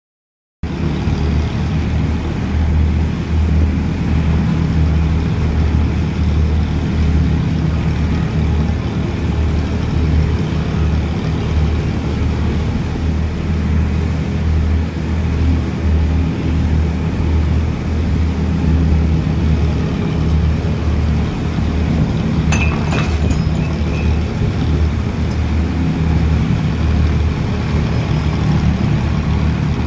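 Tractor-driven wheat threshers running steadily, a continuous low engine drone under the thresher's rumble. A brief clicking sound cuts in about two-thirds of the way through.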